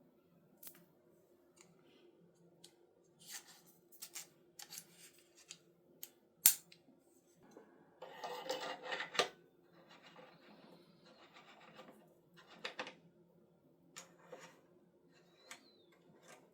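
Handling sounds of an airsoft suppressor and its tracer unit: scattered small clicks and scrapes of parts being fitted and screwed together. There is one sharp click about six and a half seconds in and a longer scrape at around eight to nine seconds.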